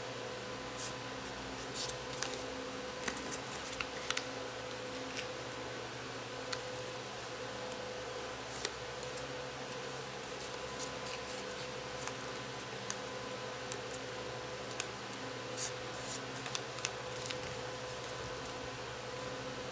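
A sheet of paper being folded and creased by hand: scattered short crinkles and scrapes as fingers press down the folds, over a steady low hum.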